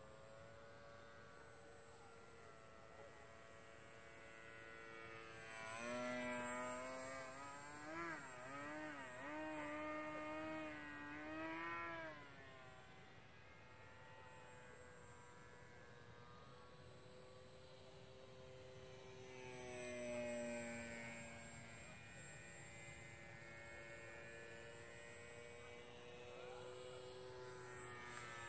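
Mini Funtana radio-controlled model aerobatic plane's motor and propeller buzzing in flight, the pitch rising and falling with throttle and manoeuvres. It is loudest on close passes, about six to twelve seconds in and again around twenty seconds in.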